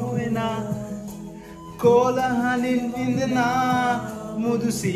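A man singing a song over instrumental backing music, with held, wavering notes; it drops quieter for a moment about a second in, then comes back louder.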